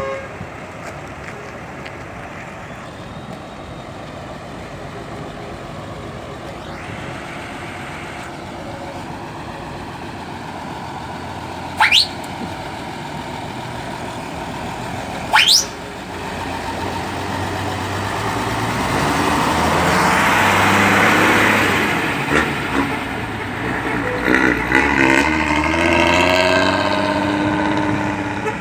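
Mercedes-Benz LO 1114 bus's six-cylinder diesel engine rumbling as the bus pulls away and passes, growing louder to a peak about two thirds of the way through, then its pitch rising and falling near the end. Before that, two sharp, loud chirps come about three and a half seconds apart.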